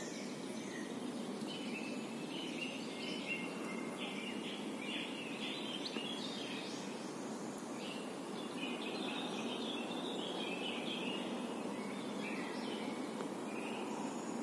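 Birds singing in short chirping phrases over a steady background noise, in two spells with a brief lull in between.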